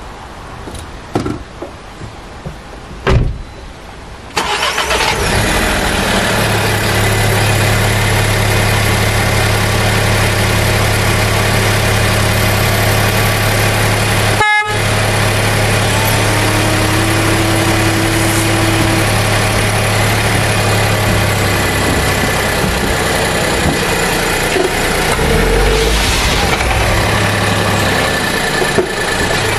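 A few knocks, then about four seconds in a loud machine starts suddenly and runs on steadily with a low hum.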